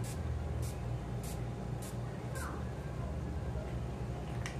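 Pump-action makeup setting spray bottle misting the face: four quick hissing spritzes about half a second apart, then a fainter one near the end.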